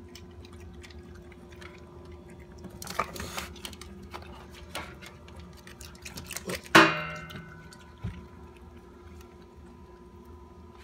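Raccoons' claws clicking and tapping on an aluminium window frame and track, with a cluster of clicks about three seconds in and one loud metallic clang about seven seconds in that rings briefly, followed by a smaller knock.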